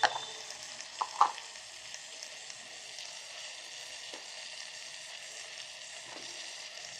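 Onion and tomato masala sizzling steadily as it fries in an electric kettle, with a few sharp clinks from stirring, the loudest at the start and about a second in.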